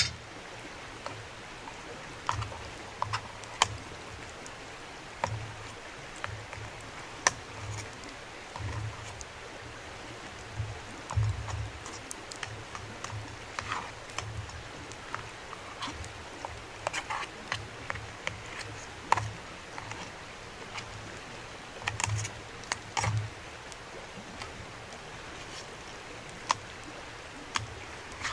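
Irregular clicks and light knocks of a utensil against a small metal pot as food is cut up and mixed in it, over a steady faint hiss.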